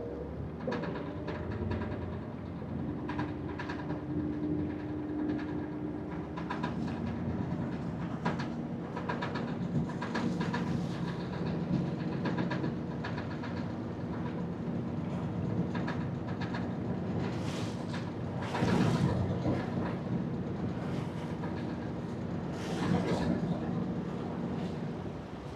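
Vaporetto (water bus) engine running steadily under way, with a constant hum and frequent rattling clicks from the boat. There are two louder rushes of noise in the last third.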